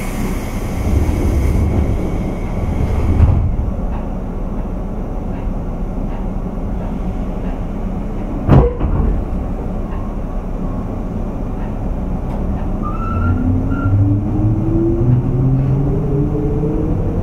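Osaka Loop Line 201 series electric train heard from inside motor car MoHa 200-247, with a steady running rumble and a sharp knock about eight and a half seconds in. From about twelve seconds on, the whine of the chopper-controlled traction motors rises in pitch as the train picks up speed.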